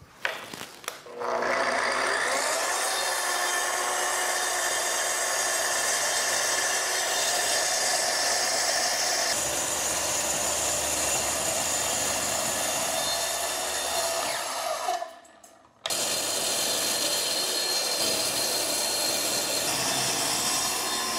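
Kreg plunge track saw spinning up about a second in and then running steadily as its blade cuts along the track through a red oak board. The sound cuts out for about a second some fifteen seconds in, then carries on.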